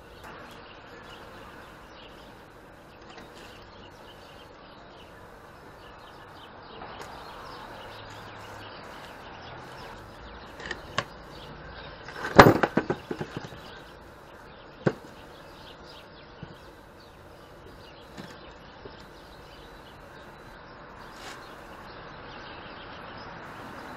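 Steel chain links clinking and wooden blocks knocking on a wooden workbench as the chain is handled, with a short rattling cluster of clanks about halfway through and a few single clicks around it, over a faint steady background noise.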